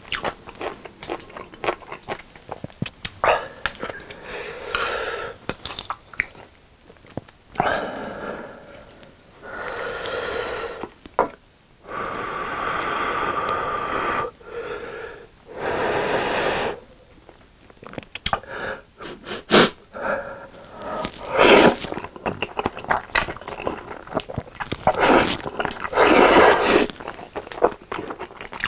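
Close-up eating sounds of carbonara Buldak stir-fried ramen noodles: several long drawn-in slurps of noodles off chopsticks, each a second or two long, between wet chewing and smacking clicks.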